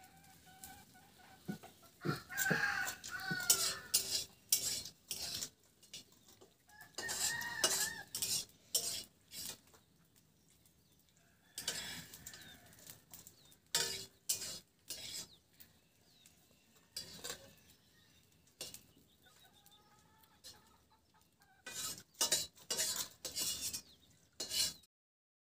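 Fingers mixing and scooping rice on a steel plate, in clusters of sharp clicks and scrapes against the metal, with hens clucking briefly now and then.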